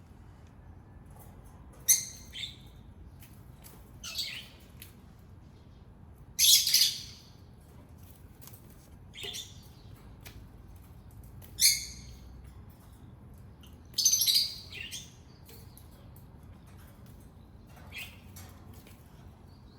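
Short, high-pitched chirping calls, about seven of them at irregular intervals, each under a second long; the longest and loudest come about a third of the way in and again about two-thirds in.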